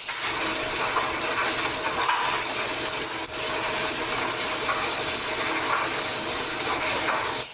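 Laundry machine running in a building laundry room: a steady mechanical noise with faint, irregular clicking.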